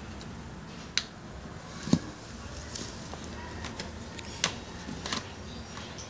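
Handling noises as a USB cable is plugged into an Arduino Uno board and moved about: a few sharp clicks, a louder dull knock about two seconds in, and small ticks and rustles in between.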